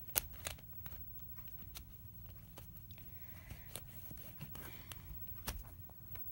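Handling noise: a scattered handful of sharp, faint clicks and small knocks over a low rumble, the loudest just after the start.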